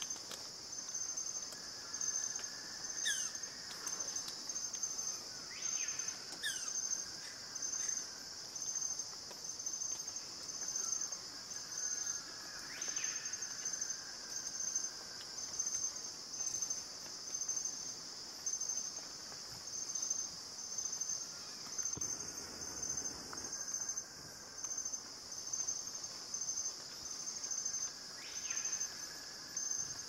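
Steady, high-pitched insect chorus, pulsing a little faster than once a second. A few brief calls sound over it, two of them quick falling whistles.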